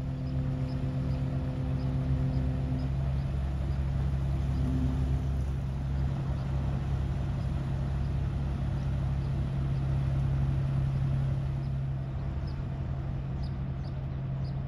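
Steady low engine rumble with a deep throb beneath it, joined for the first three seconds by a higher humming tone.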